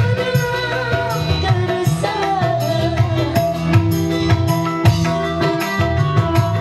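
Live dangdut band music: a quick, steady beat on hand drums under keyboard, with a woman singing a wavering melody into a microphone.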